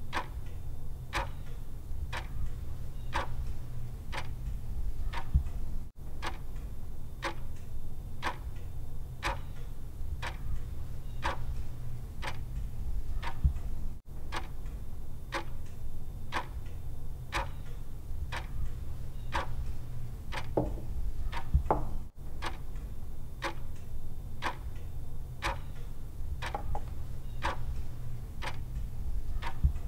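Wall clock ticking steadily, a little under two ticks a second, over a low steady hum.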